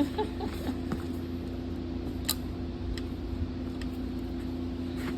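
A steady mechanical hum with a low rumble beneath it, and three or four faint sharp clicks about a second apart in the middle.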